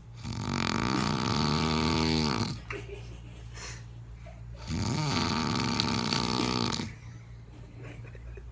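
A person snoring loudly: two long snores of about two seconds each, with a quieter breath between them.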